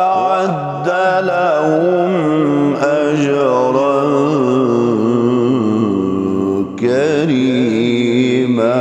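A man reciting the Quran in melodic tajweed style, holding long drawn-out notes with wavering ornaments. The phrase breaks off briefly about seven seconds in, then resumes.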